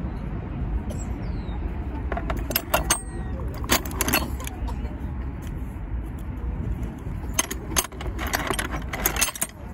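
Outdoor flea-market ambience: a steady low rumble with clusters of metallic clinking about two to four seconds in and again from about seven and a half seconds to near the end.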